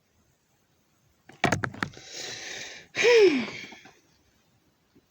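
A few short clicks, then a person drawing a long, deep breath in and letting out a loud voiced breath that falls in pitch.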